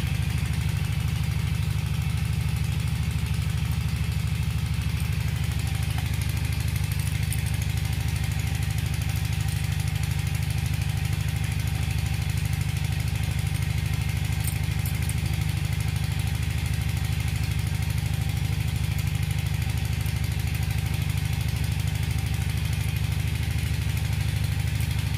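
Steady low drone of an engine running without change in speed, the engine noise the speaker calls 'dhamkal'.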